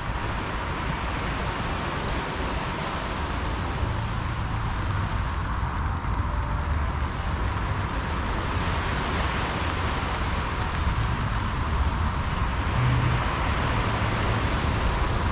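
Steady rush of wind and rain, with a low rumble beneath it.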